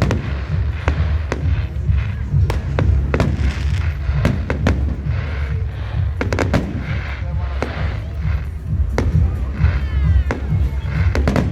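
Fireworks going off: a rapid, irregular string of sharp bangs and crackles over a steady low rumble.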